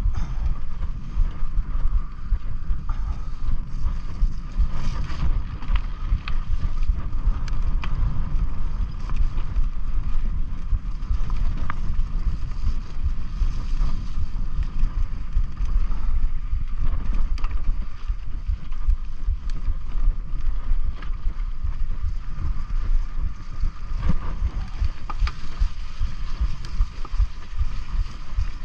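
Mountain bike being ridden along a dirt singletrack: wind buffeting the camera microphone, tyre noise and frequent small clicks and rattles from the bike, over a steady high hum.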